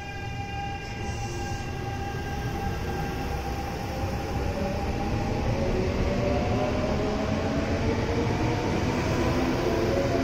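Kintetsu electric commuter train running at the station, growing louder, its motor whine rising in pitch as it gathers speed. A steady high tone fades out over the first few seconds.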